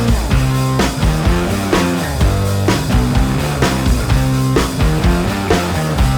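Instrumental rock music with a steady drum beat and guitar.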